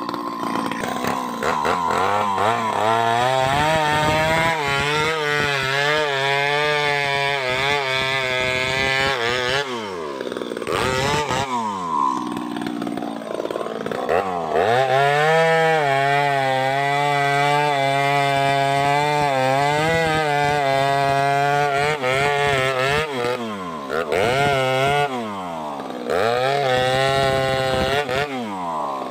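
Two-stroke chainsaw cutting into a tree trunk, held at high revs under load with its pitch wavering as the bar bites. It drops back about ten seconds in, runs hard again for several seconds, then is blipped in short revs near the end.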